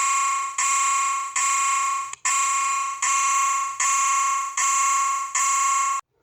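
Siren sounding a steady-pitched tone in repeated short pulses, about eight of them at a little over one a second, with no rise or fall in pitch. It cuts off just before the end.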